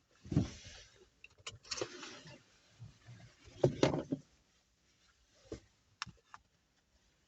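Irregular clicks and knocks of something being handled, with two louder thumps, one just after the start and one about three and a half seconds in.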